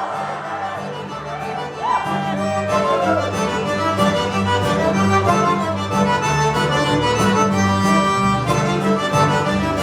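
Live Cajun string-band music led by a Cajun accordion, with fiddle over a steady bass line and beat; the band plays fuller from about two seconds in.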